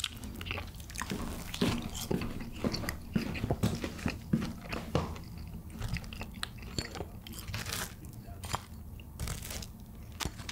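Crunchy bites and chewing of crispy seasoned fried chicken (BHC Bburinkle), picked up close by the microphone, with many sharp crunches throughout.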